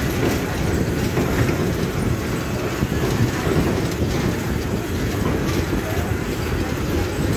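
Passenger train running, the steady rumble of its wheels on the track heard from inside a carriage, with faint clicks of the wheels over rail joints.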